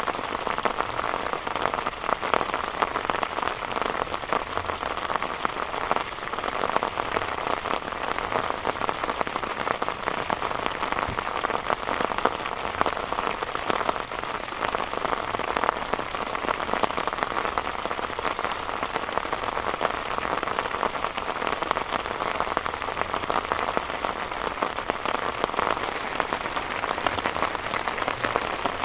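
Heavy rain falling steadily, a dense patter of drops striking a surface without letup.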